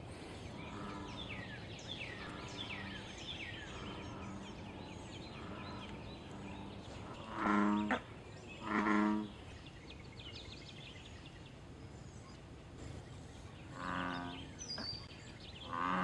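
American bullfrogs calling: deep, droning call notes. Two loud calls come a little after halfway through and two more near the end, with fainter calls in the first half.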